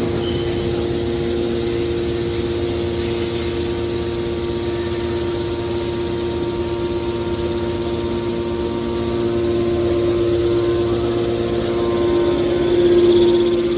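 A metal baler's electric motor and hydraulic pump running with a steady, loud hum, growing a little louder in the last few seconds.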